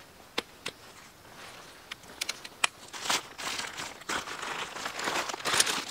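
Fabric drawstring stuff sack rustling and crinkling as it is pulled open, getting louder toward the end, after a few sharp clicks in the first half.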